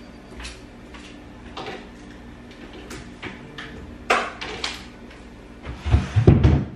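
Light clicks and knocks of objects being handled and set down in a room, with a sharper knock about four seconds in. Near the end comes a short run of heavy low thumps and bumps, the loudest sound.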